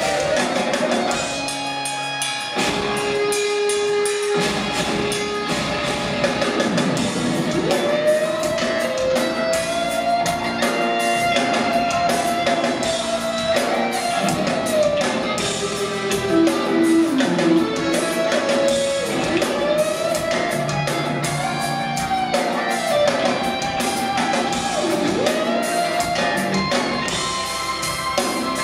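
Live rock instrumental: an electric guitar plays a lead melody of long held notes that swoop up and dip in pitch, over a drum kit.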